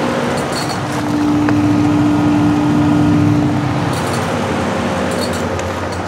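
Payne PH15 1.5-ton heat pump outdoor unit running in heat mode: compressor and condenser fan make a steady hum, with a higher steady tone that comes in about a second in and drops away after about three seconds. The unit doesn't sound too good.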